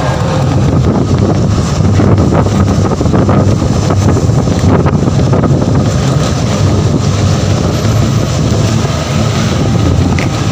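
Wind buffeting a microphone held out of the window of a moving bus, over the steady rumble of the bus's engine and tyres on the road.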